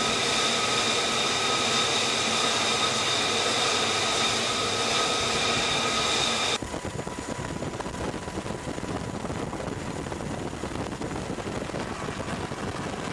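Jet engine running steadily with a high whine over a loud rush of noise, which cuts off abruptly about six and a half seconds in to a quieter, lower steady rumble.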